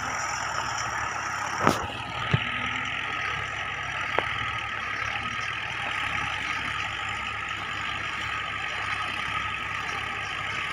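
Tractor diesel engine running steadily while pulling a plough, with a few sharp clicks or knocks in the first few seconds.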